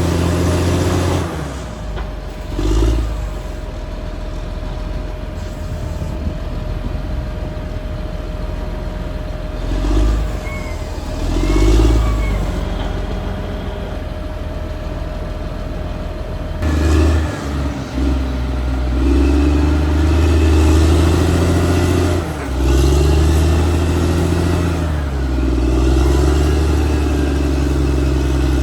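Caterpillar D6R XL bulldozer's diesel engine working, its note rising and falling with the load. It runs lighter through the middle, swelling briefly a few times, then pulls hard and loud for the last third.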